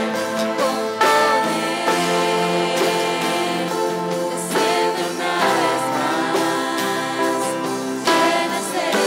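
Live Christian worship band playing a song: several voices singing over electric and acoustic guitars, bass and keyboard, with new chords struck every second or few.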